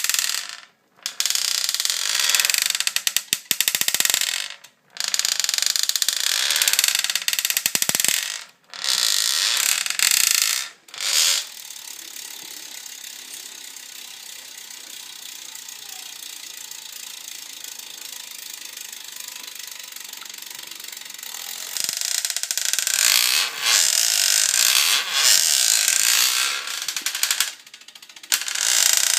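Cervélo S5 road bike's drivetrain making long stretches of fast ratcheting clicks, with a quieter, steadier running sound from about 12 to 22 seconds in. The owner hears a creak from the BBright bottom bracket area.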